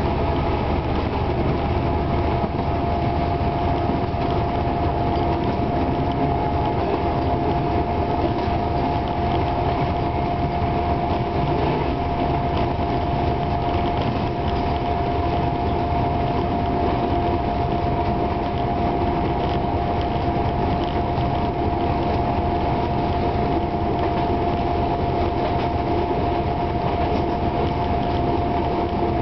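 Class 749 diesel locomotive running steadily under way, heard from inside its cab: an even engine rumble with a steady whine over it and the wheels running on the track.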